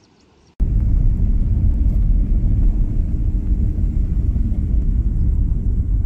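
A loud, dense low rumble starts abruptly about half a second in, after near silence, and carries on unevenly.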